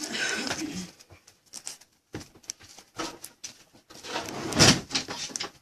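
Trading cards and foil pack wrappers being handled on a table: irregular light clicks, scuffs and rustles, with a louder scuff about four and a half seconds in.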